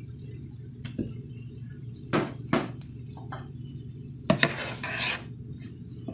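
Sharp knocks and clinks of kitchen utensils against a nonstick frying pan, then a wooden spatula scraping through potato wedges and fried onions about four and a half seconds in, over a steady low hum.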